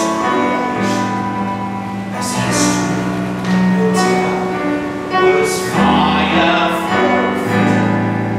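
A man singing a musical-theatre number over instrumental accompaniment, with long held notes.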